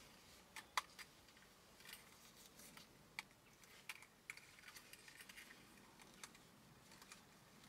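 Faint scattered clicks and ticks of small plastic parts of a dashcam mount being handled and fitted together, the sharpest click a little under a second in and a run of small ticks around the middle.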